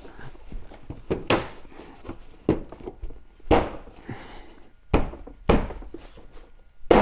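About half a dozen sharp knocks and clunks, irregularly spaced roughly a second apart, as the Land Rover Defender's front bumper parts are pushed and bolted into place.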